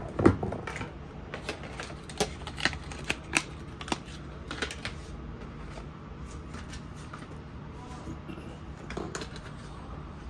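Clicks and light clatter of a 2.5-inch laptop hard drive and the metal chassis of an all-in-one PC's drive bay being handled as the drive is lifted out. A quick run of sharp clicks comes in the first five seconds, then a few faint ones, over a low steady hum.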